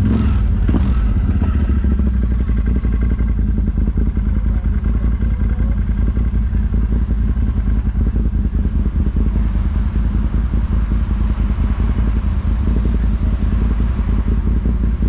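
ATV engine running at a steady pace, with a few knocks and rattles in the first second.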